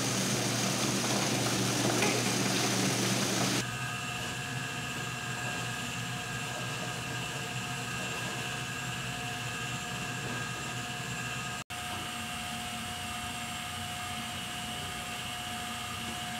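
An electric mincer grinding tangerine pulp gives a loud, rough motor noise. About three and a half seconds in it gives way to a quieter, steady machine hum with a faint whine, from the jam kettle's motorised stirrer. The hum drops out for an instant about twelve seconds in.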